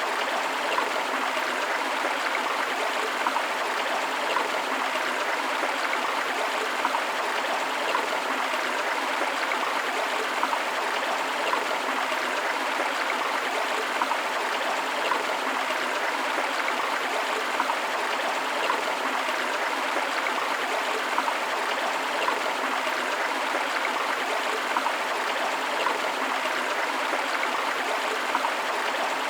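Forest river flowing steadily, water rushing and splashing over rocks with a small waterfall, an even, unbroken sound with no low rumble.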